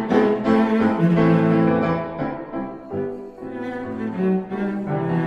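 Instrumental background music with long held notes, softening for a moment about halfway through.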